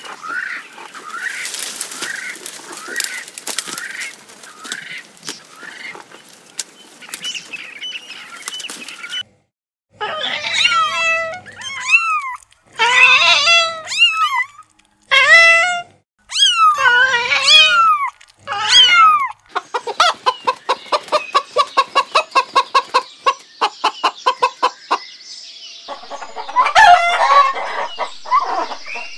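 Animal calls from several short clips cut together. First faint high chirping with ticks, then after a brief gap a string of loud kitten mews that rise and fall. Then a hen clucking in a fast, even run of short notes, with more clucks near the end.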